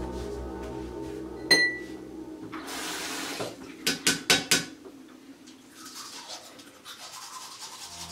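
Bathroom-sink toothbrushing sounds: a sharp ringing clink about a second and a half in, a short rush of tap water, then four quick taps of a toothbrush on the edge of a ceramic sink. Near the end comes the faint scrub of teeth being brushed.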